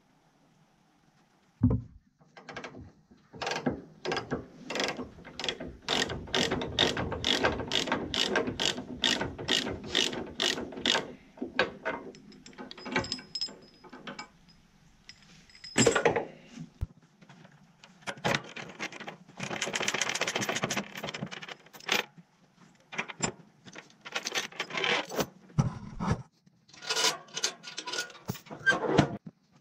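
Ratchet chain binders on a trailer tie-down being cranked loose: a long run of ratchet clicks at about two a second, then a loud clank and a burst of chain rattling, with more clicks near the end.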